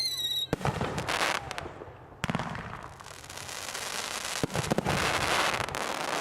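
Consumer fireworks going off: a falling whistle cuts off about half a second in, followed by a sharp bang and crackling. Further bangs come about two and four and a half seconds in, with crackle between them.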